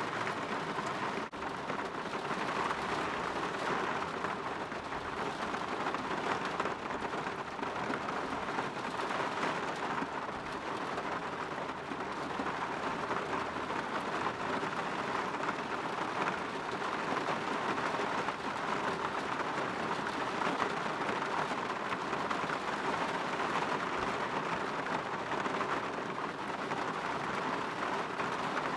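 Steady rain falling against a window: a dense, even hiss of drops, with a split-second break about a second in.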